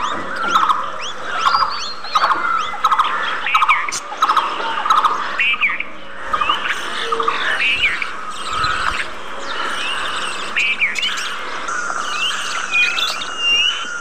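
A flock of caged budgerigars chattering: many short chirps and warbled calls overlapping without a break.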